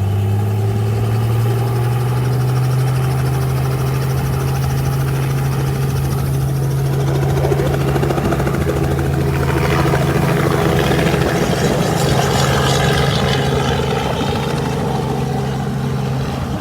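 Tour helicopter running up for takeoff: a strong, steady engine-and-rotor hum whose pitch rises over the first couple of seconds and then holds, with more rushing noise from about halfway on.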